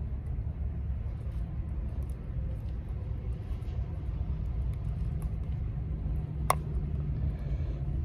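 Steady low rumble of wind on the microphone, with a single sharp click about six and a half seconds in.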